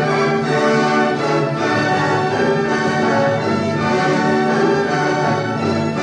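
Orchestral background music with held chords.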